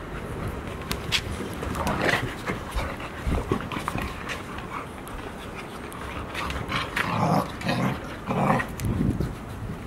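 Golden Retriever puppies play-wrestling and panting, with scattered short scuffles. Toward the end a puppy pants close by.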